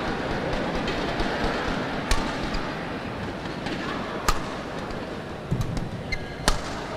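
Badminton rackets striking a shuttlecock in a rally: several sharp, crisp hits, the clearest about two seconds apart, over the steady hum of an arena crowd.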